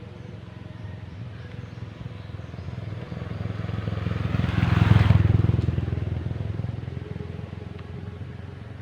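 A motorcycle drives past, its engine getting louder to a peak about five seconds in, then fading away.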